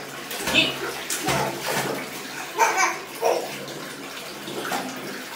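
Water running and splashing in a bathtub as a toddler is washed, with a few short wordless sounds from a child's voice.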